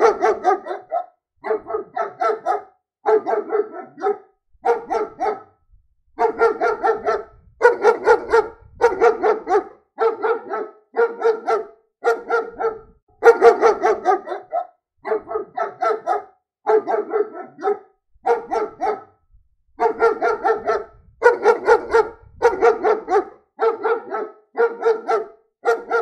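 German shepherd barking repeatedly, about one bark a second, with two brief pauses.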